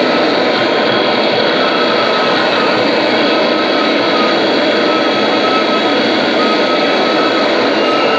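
Loud, steady wall of harsh noise with faint thin whistling tones riding above it, unchanging throughout.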